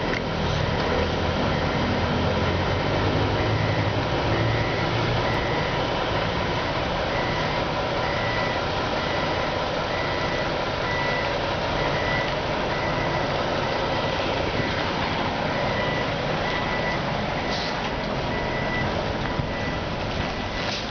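Coach bus reversing with its engine running low, while its reversing alarm gives short high beeps about once a second.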